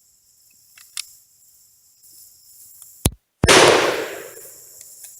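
A single loud rifle shot about three seconds in, ringing out and dying away over about a second, with a few faint small clicks before it.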